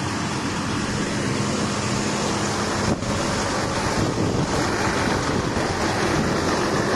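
Steady rushing noise of wind buffeting a phone's microphone as it is carried outdoors, with a faint low hum that stops about three seconds in.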